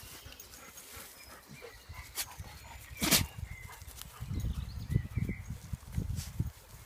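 Dogs playing on dry grass, with one short, sharp dog bark about three seconds in, the loudest sound, followed by a run of low thuds.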